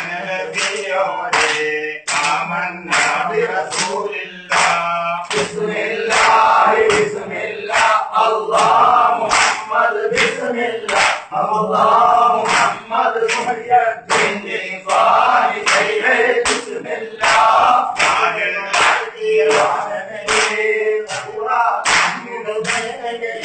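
A group of men chanting together in a dhikr, with a steady beat of palms slapping the floor about twice a second.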